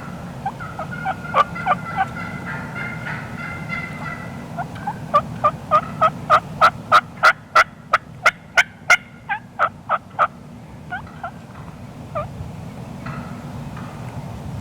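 Wild turkey yelping. Softer calls come first, then a loud, evenly paced run of about seventeen yelps at roughly three a second, ending around the middle.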